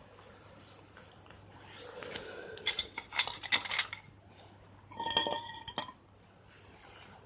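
Metal cookware and utensils clinking and clattering in two bursts, the second ringing briefly.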